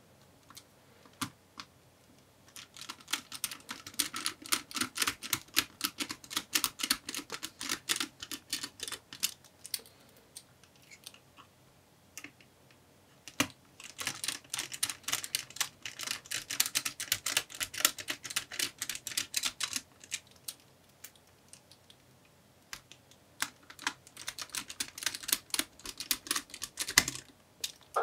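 A small Phillips screwdriver driving the screws that hold a laptop's cooling fan down, giving rapid light clicking in three runs of several seconds each, with short pauses between.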